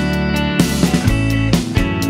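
Music: an instrumental stretch of a song between sung lines, guitar over a steady drum beat.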